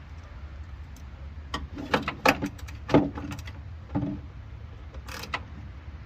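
Scattered clicks and knocks of a power-window motor being fitted and fastened inside a pickup's door, the loudest two in the middle, over a steady low hum.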